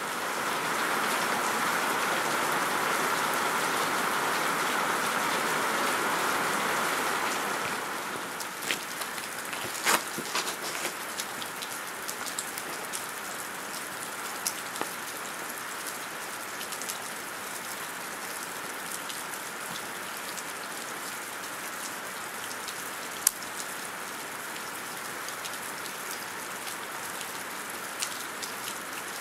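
Steady rain-like hiss, louder for the first seven seconds or so, with a few faint clicks and taps scattered through.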